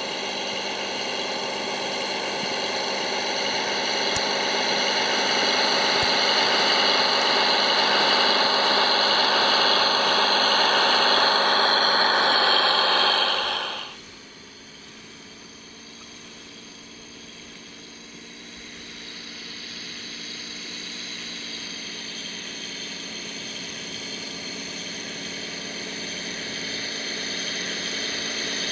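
RC Claas Xerion 5000 model tractor (a rebuilt Bruder model) driving through snow, its drive motors and gears giving a steady whine. The whine slowly grows louder, drops off sharply about halfway, then builds up again.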